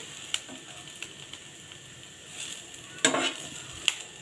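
Sliced onions, garlic, green chillies and coconut powder sizzling in oil in a non-stick frying pan as a spatula stirs them, with a few short scrapes of the spatula against the pan. The masala is being fried to a light golden brown.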